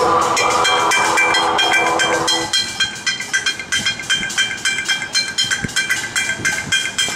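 Metal pots and pans being banged hard and fast as noisemakers, several strikes a second with a ringing metallic clang. For the first two and a half seconds a held, pitched sound runs underneath, then stops.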